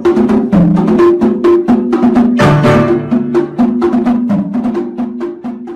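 Background music with a quick, even percussive beat of sharp clicks over a repeating bass line.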